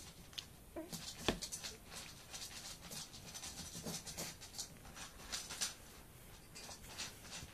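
Young Swedish Lapphund puppies scrabbling and rustling about in their bedding, a quick run of light scratching ticks, with a few brief low grunts about one and four seconds in.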